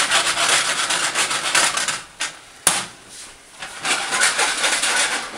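Rough scraping and rubbing noises in two long spells, with one sharp click about two and a half seconds in.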